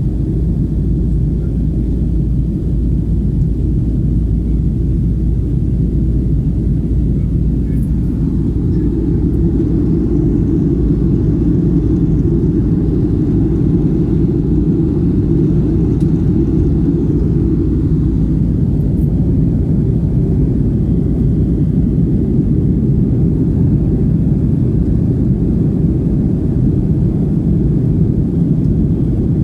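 Steady low rumble of a passenger jet's engines and airflow heard inside the cabin, swelling a little in the middle.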